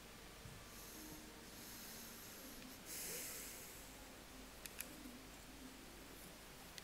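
Faint breathing: a few soft hissing breaths, the loudest about three seconds in, followed by two small clicks.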